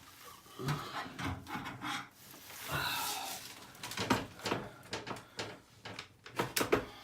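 Irregular rubbing and scraping with scattered light knocks and clicks, from hands and tools working against the air handler and the sheetrock.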